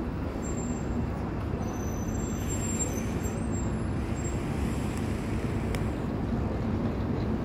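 Steady low rumble of city traffic and idling buses, with a few faint high-pitched squeals about two seconds in.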